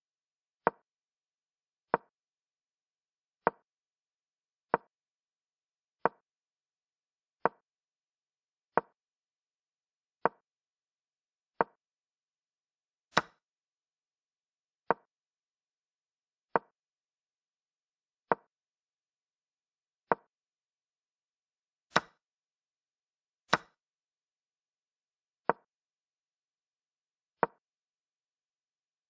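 Chess app move sounds: a short wooden click for each piece moved, about one every one and a half seconds, eighteen in all. Three sharper, brighter clicks, one a little before halfway and two close together later on, mark captures.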